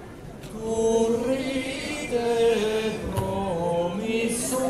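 A slow chant sung in unison, long held notes stepping from one pitch to the next.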